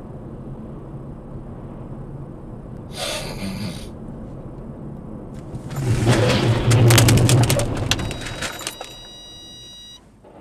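Dashcam car running at road speed with steady engine and tyre noise, then about six seconds in a violent crash as a truck collides with the SUV just ahead: metal crunching and debris clattering for about three seconds. Steady high tones ring on for about a second after the impacts.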